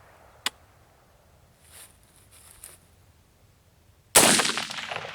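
AR-15 rifle firing a single 5.56 M193 full metal jacket round about four seconds in: a loud, sudden report with a tail that dies away slowly. The shot misses the steel target. A single faint sharp click comes about half a second in.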